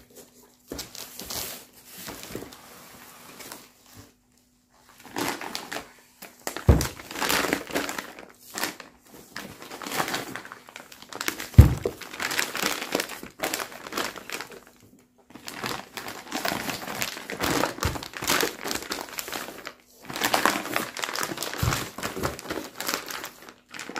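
Clear plastic bags crinkling and rustling in irregular bursts as bagged tubs are lifted out and handled, with two dull knocks, the louder one about halfway through, as containers are set down.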